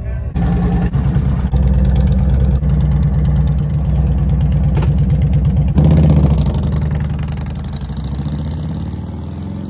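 Harley-Davidson Electra Glide Police's high-output 103 Twin Cam V-twin with 585 cams running steadily, then opened up about six seconds in as the bike pulls away, its sound fading as it rides off.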